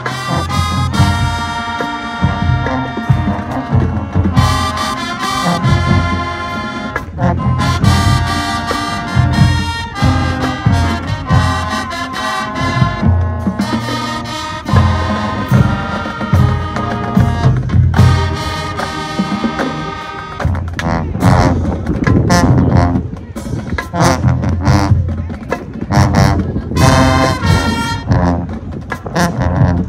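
High school marching band playing: brass sections sound held chords and phrases over drums. In the last third the drums strike faster and the brass plays short stabs.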